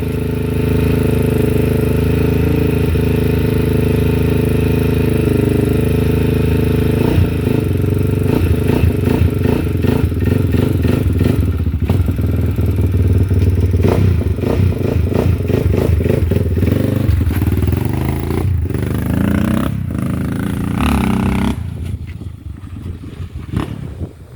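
A 2007 Honda 400EX ATV's single-cylinder engine, bored out to 440, idling a little high and steady for several seconds, then revved unevenly as the quad pulls away, fading out near the end.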